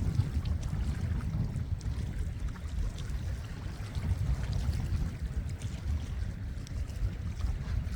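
Sea water lapping and splashing, under a steady low rumble of wind on the microphone.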